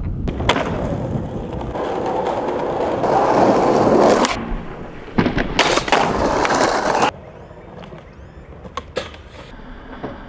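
Skateboard wheels rolling over pavement, with sharp clacks of the board popping and landing; the rolling noise swells and cuts off abruptly twice as the clips change, and the last few seconds are quieter with a few light clicks.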